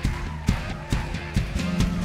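Live rock band playing, amplified through a venue PA: the drum kit keeps a steady beat of a little over two hits a second under a bass line and guitars.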